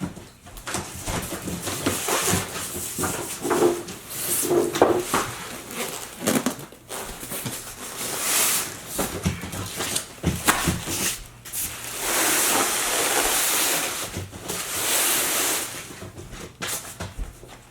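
Cardboard box and packing material being handled and pulled open: irregular rustling and scraping with scattered knocks, and a long loud scrape about twelve seconds in.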